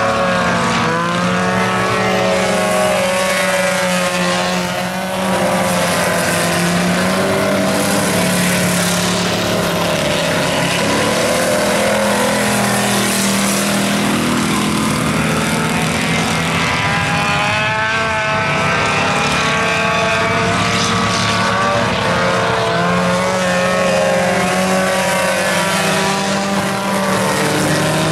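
Several dirt-track stock car engines racing at once, their pitch rising and falling over one another as the cars accelerate and ease off.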